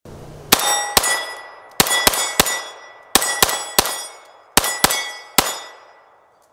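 Eleven shots from a Taran Tactical Sand Viper, a 9mm 1911 pistol, fired in four quick strings of two, three, three and three. Each shot is followed by a metallic ring that dies away over about a second.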